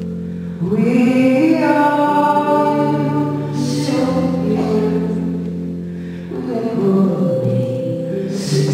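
A woman singing a slow song live into a microphone over held accompaniment chords. One sung phrase starts about half a second in and another about six seconds in.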